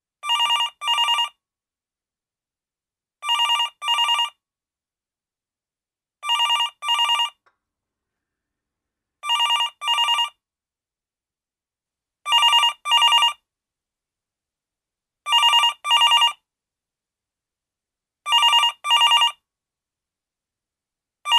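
Telephone ringing with a double ring: a pair of short rings about every three seconds, repeating evenly seven times, with an eighth pair just starting at the end.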